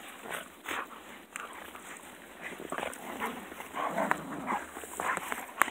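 Dogs making short, irregular vocal sounds while wrestling in play, with scuffles and knocks mixed in.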